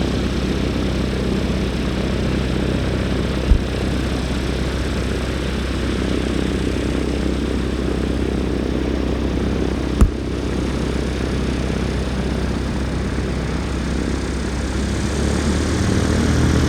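Aircraft engine running steadily at a low, even speed, with two sharp clicks: one a few seconds in and another about two thirds of the way through.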